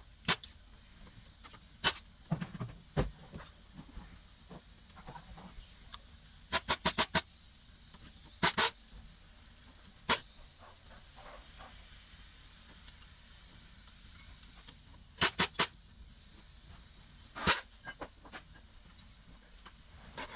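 Scattered sharp clicks and taps of small metal parts and tools being handled, including a quick run of about five clicks about six and a half seconds in and a few pairs, over a steady hiss.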